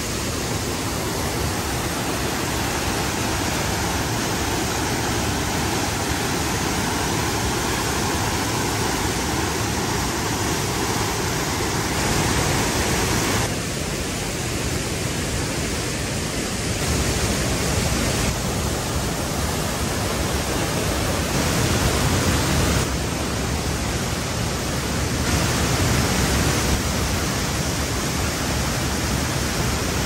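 Steady rush of a waterfall and the fast stream below it. Its tone and loudness shift a few times, most after the middle.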